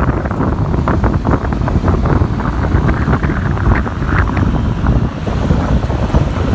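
Strong wind buffeting the microphone in a loud, steady low rumble, with rain falling and many short crackles through it.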